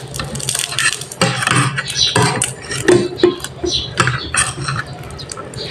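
Metal spoon and fork scraping and clinking against a plate as they work through a plate of instant noodles, a run of quick irregular clicks and scrapes.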